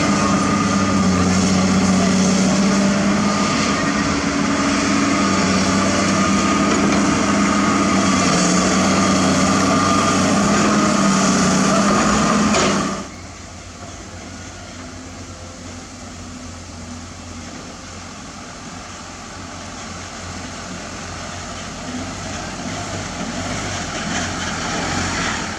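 Diesel engines of heavy construction machinery running loud and steady. About halfway through the sound drops suddenly to a quieter engine that slowly grows louder toward the end.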